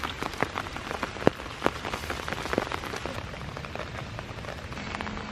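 Steady rain falling: an even patter with scattered sharp taps of single drops, the loudest about a second and a half in.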